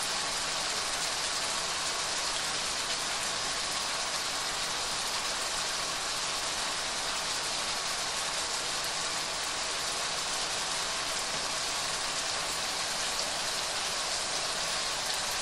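Diced bacon frying in olive oil in a wok over high heat: a steady, even sizzle, with a range hood fan running underneath.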